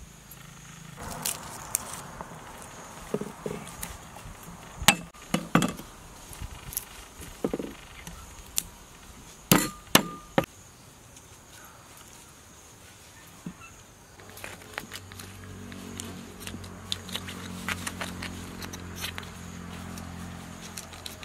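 Cleaver knocking and tapping on a wooden cutting board: several sharp loud strokes, strongest around the middle, among lighter clicks. From about two-thirds of the way through, a low steady hum sets in under faint clicking.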